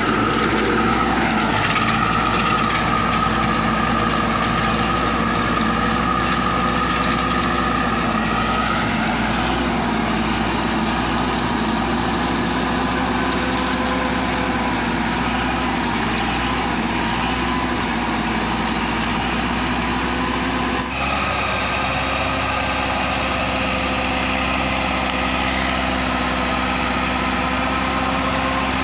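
Farm tractor engine running steadily under load as it drives a rotary tiller and bed-former through loose soil. The sound shifts suddenly about two-thirds of the way through.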